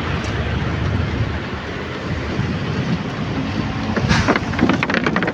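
Sea surf washing on the shore, a steady rushing noise with wind on the microphone, getting louder and rougher about four seconds in.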